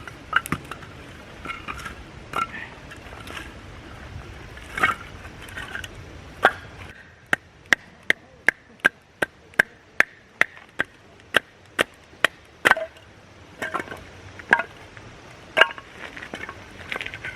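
Firewood being chopped for a campfire: scattered sharp knocks, then a steady run of about fifteen quick blows at roughly three a second, then a few more.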